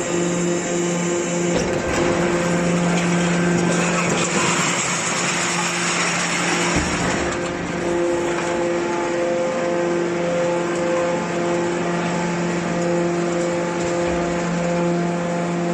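Small hydraulic scrap baler running: its electric motor and hydraulic pump give a steady hum, with a louder rushing noise for a few seconds from about four seconds in.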